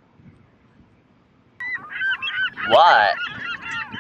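A flock of birds starts calling about a second and a half in: many short, overlapping calls, each bending in pitch.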